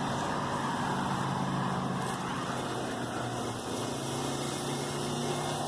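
Car engine running steadily with road noise, a constant low hum that does not change.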